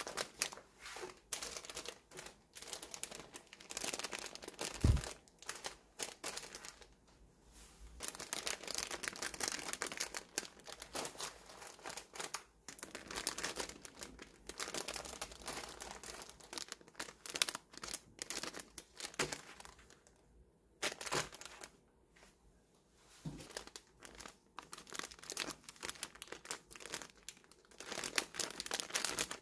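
Clear plastic packaging bags crinkling as bagged scrunchies are handled and laid out, in irregular bursts with short pauses. A soft thump about five seconds in.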